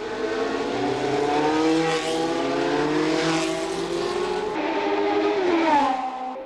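1970s Formula One car engine running at high revs, its pitch climbing slowly and then falling near the end.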